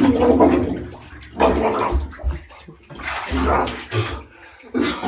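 Water sloshing and splashing in a bathtub in four surges: the bathtub Jell-o never set and is still liquid, just colored water.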